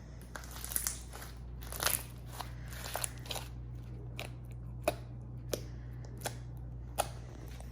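Slime being kneaded and squeezed, its trapped air bubbles popping in irregular sharp clicks and crackles, busier in the first few seconds and sparser after.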